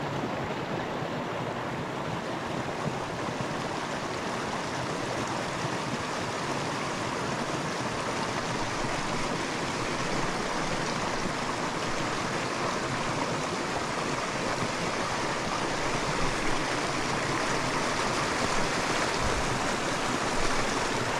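Small mountain creek rushing over rocks: a steady, even rush of running water.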